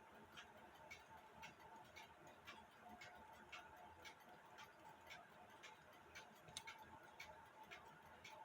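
Mechanical alarm clock movement ticking steadily and faintly, about two ticks a second.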